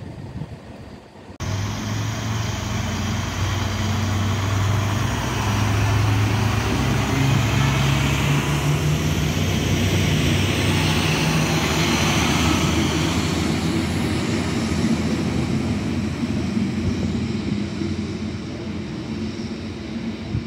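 A DB Class 642 Desiro diesel multiple unit running through the station and passing close by: a steady diesel engine drone with rushing wheel-on-rail noise, loudest as it goes past about halfway through. The sound cuts in abruptly about a second and a half in.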